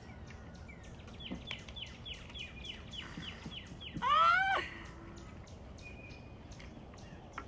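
High-pitched animal calls: a quick run of short falling chirps, then one louder rising squeal about four seconds in.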